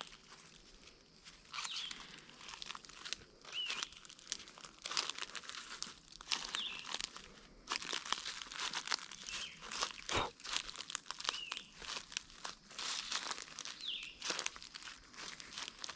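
Footsteps crunching and crackling through dry dead leaves and ground cover, a step about every second and a half.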